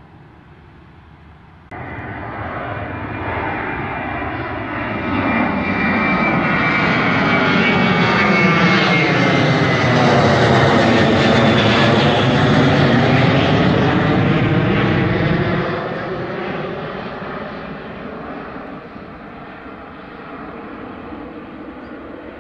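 CFM56-7B turbofan engines of a Boeing 737-800 climbing out overhead after takeoff. The jet noise starts abruptly about two seconds in and builds to its loudest as the airliner passes over, with a high whine falling in pitch. It then fades as the plane climbs away.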